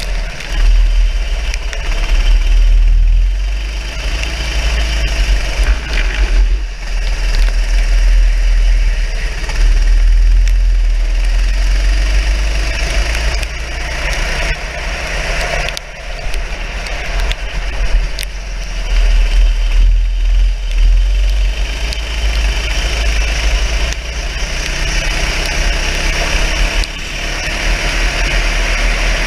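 Racing kart engine running at race pace on a wet track, its revs rising and falling every few seconds through the corners. Heard from an onboard camera, with heavy wind rumble on the microphone.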